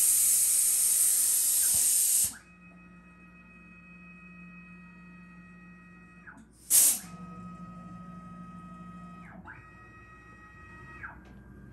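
Automatic tool change on a Super Prolight 1000 CNC mill. A loud blast of compressed air at the spindle's pneumatic tool release runs for about two seconds and a second short blast comes about seven seconds in. In between, the axis drive motors whine in steady tones that glide up and down as the head moves three times.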